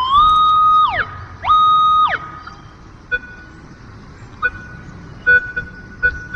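Minelab CTX 3030 metal detector sounding target tones through its loudspeaker: a tone that slides up, holds for about a second and drops away, a second held tone, then a few short blips. It signals a buried target giving a mixed low and high tone.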